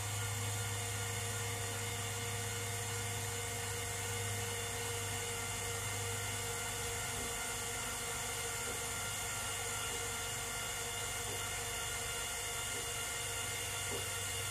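Four electric linear actuators whirring steadily as they lower a golf cart's roof.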